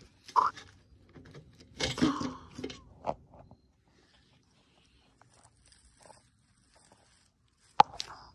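Dry grass rustling and crunching in a few short bursts as small plastic figures are moved through it by hand. A sharp click comes near the end.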